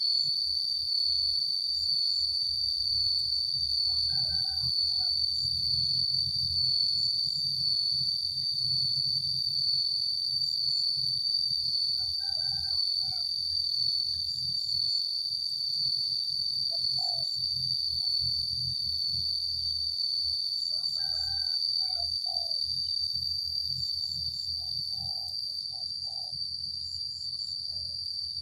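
Cicadas droning in one steady, high-pitched buzz, with a rooster crowing several times in the background.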